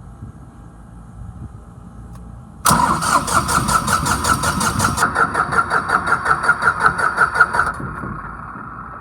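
Electric starter cranking the John Deere diesel engine of an SDMO J40 generator for about five seconds, a loud, fast rhythmic pulsing that starts suddenly and then stops without the engine catching. It cranks but won't start, probably because of a disconnected fuel hose.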